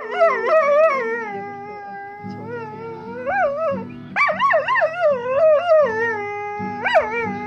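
A dog howling along to a strummed acoustic guitar: long, wavering howls that slide up and down in pitch, with a short break about four seconds in and a sharp upward swoop near the end.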